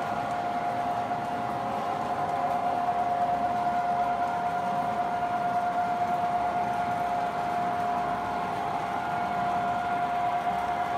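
O gauge model diesel locomotive set (MTH Rio Grande F-units with smoke units) running on the track: a steady whine over an even hiss, a little louder from about two seconds in as it approaches.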